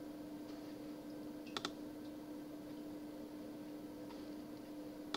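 A quick double click of a computer mouse about one and a half seconds in, over a steady faint electrical hum.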